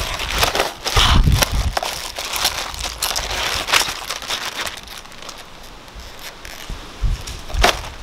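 Plastic courier satchel crinkling and rustling in irregular crackles as it is handled and a boxed LED strip light is pulled out of it, busier in the first half, with one sharp crackle near the end.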